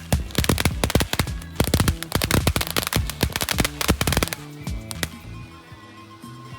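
A string of firecrackers going off in rapid, irregular bangs for about four seconds, then stopping, over background music.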